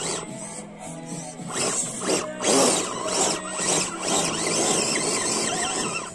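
Scale RC rock crawler's small electric motor and gearbox whining in uneven spurts as it crawls up a dirt slope, with its tyres scrabbling over soil and roots.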